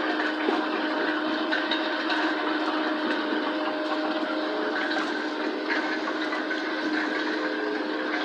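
ROPA sugar-beet cleaning loader running steadily as it draws sugar beets from a clamp into its pickup. Its machinery keeps up an even noise with a steady hum at several pitches.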